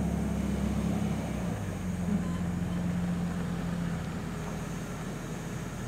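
Vehicle engine idling steadily: a low hum with a faint hiss above it, easing slightly about four seconds in.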